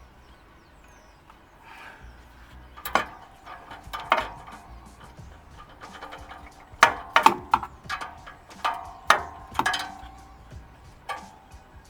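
Hand tools clinking and clanking against metal while working on a car's rusted exhaust fixings: scattered sharp metallic strikes with a short ring, bunched together in the second half.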